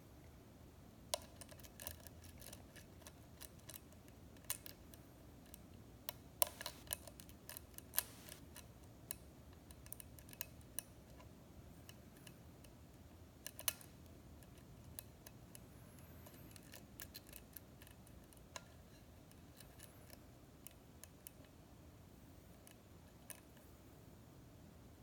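Small, irregular metal clicks and ticks of a lock pick and tension wrench working the pin stack of a six-pin Schlage-style lock cylinder, held in a deep false set. The clicks come in clusters in the first half and thin out toward the end.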